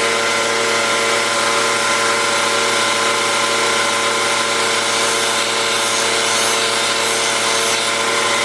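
Electric power tool running steadily with a constant motor hum and hiss, reshaping the steel blade of a Victorinox pocket knife into a sheep's foot profile.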